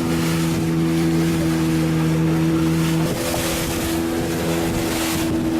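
A fishing boat's engine running steadily, with wind and water noise around it. The engine note shifts about three seconds in.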